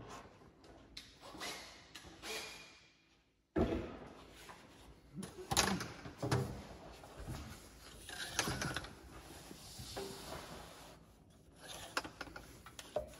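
Irregular knocks, scuffs and rustling of a person moving about and crawling on his back across a concrete floor under a boat, with a brief dropout to near silence about three seconds in.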